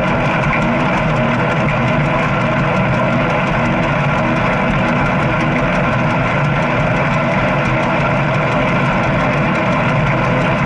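Motorcycle engine running at a steady pitch on the move, with a constant rush of wind and road noise over it.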